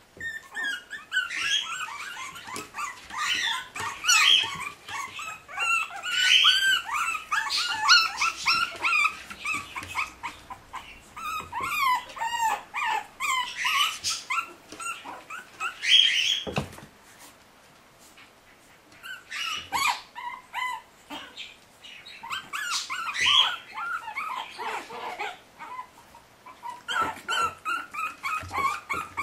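Litter of 40-day-old Shih Tzu puppies whining and yipping in quick, high-pitched cries, overlapping through most of the time, with a short lull of about two seconds a little past halfway.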